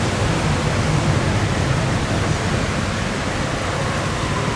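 Steady rushing of water at a sluice gate, with a low rumble underneath from barge diesel engines.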